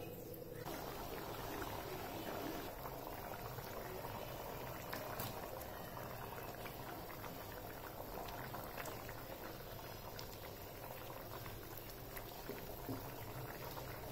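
Thick masala gravy boiling in a pan, large bubbles steadily popping and plopping with many small pops.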